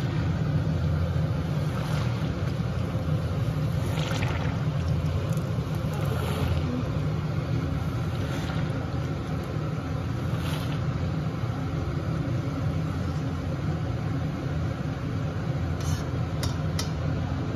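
Malpua deep-frying in hot oil in an iron kadhai: steady sizzling over a low rumble, with a few scrapes of the steel spatula and a quick series of clicks of metal on metal near the end.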